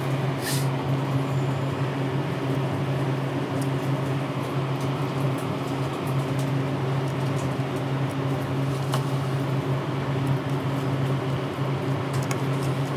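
Steady low mechanical hum, with a few faint light ticks.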